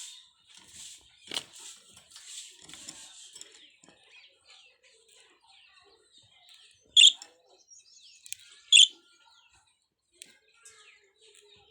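Budgerigars chattering with many short, wavering chirps, and two loud, sharp calls a bit under two seconds apart past the middle.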